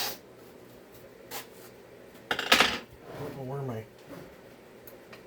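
Small metal parts and hand tools clinking and rattling on a workbench during a chainsaw teardown, with scattered clicks and one loud metallic clatter about halfway through.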